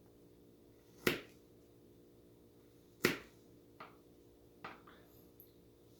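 Victorinox Huntsman Swiss Army knife blade cutting in strokes: two sharp snaps about two seconds apart, then two fainter clicks.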